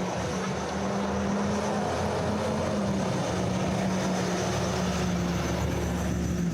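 Engine of a large vehicle running close by in city traffic: a steady low drone with a held tone and a deep hum beneath it, dropping slightly in pitch right at the end.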